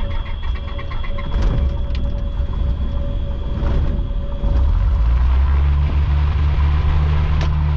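Small single-engine propeller plane's engine running, heard inside the cabin as a steady low rumble with a faint whine; it gets louder about four and a half seconds in as power comes up.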